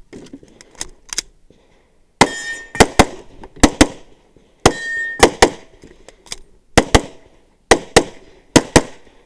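9mm SIG P320 pistol firing rapidly, mostly in quick double taps, about fifteen shots starting about two seconds in. Light knocks and clicks come before the first shot.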